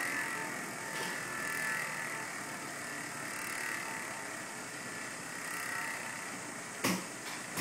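Chris King rear hub freewheeling as the wheel spins, its freehub giving a steady, noisy buzz. A sharp knock sounds near the end.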